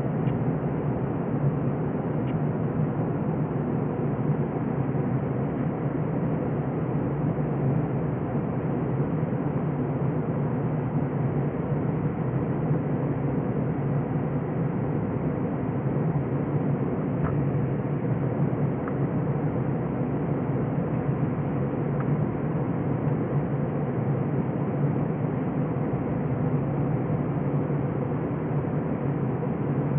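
Steady jet engine and airflow noise inside an Airbus A321's cabin as it climbs through cloud after takeoff, an even rush with a low hum beneath it.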